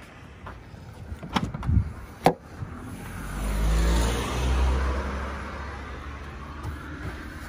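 A few clicks, the sharpest about two seconds in as the tailgate is unlatched and lifted, then a car passing by, its tyre and engine noise swelling and fading over a few seconds.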